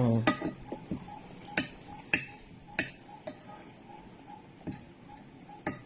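Cutlery clinking against a plate during a meal: about seven light, sharp clicks spaced unevenly, roughly a second apart.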